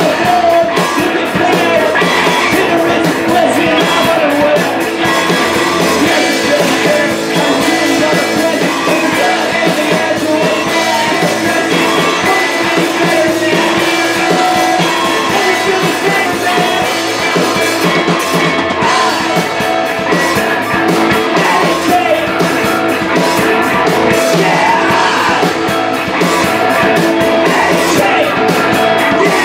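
Rock band playing live and loud: two electric guitars, electric bass and drum kit, with a singer's vocals into the microphone.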